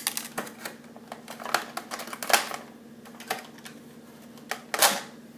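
Stiff clear plastic blister packaging being handled and pulled apart: irregular crinkles and clicks, with two louder crackles about two and a half and five seconds in.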